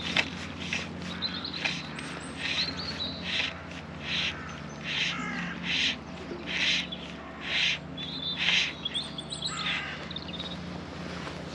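A crow cawing over and over, about ten calls a little under a second apart. Thin, high chirps of smaller birds come in between the calls.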